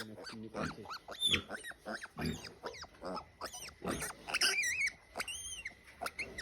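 Young pig squealing and grunting while being handled and dosed with medicine: a string of short, high, wavering squeals, the strongest a few seconds in, with low grunts between.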